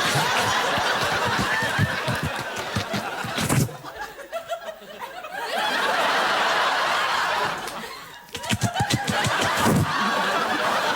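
Studio audience laughing in waves. The laughter eases off about four seconds in, swells again, dips briefly around eight seconds and comes back.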